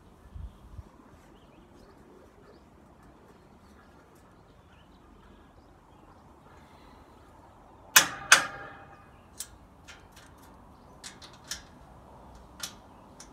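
Clanks and clicks of hands working a bracket on a metal awning frame: two loud sharp knocks close together about eight seconds in, ringing briefly, then scattered lighter clicks.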